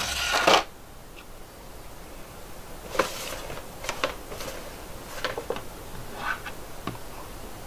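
A clear plastic blister tray rustling as it is slid across a table, followed by a few scattered light taps and clicks from a cardboard box and a small plastic action figure being set down and handled.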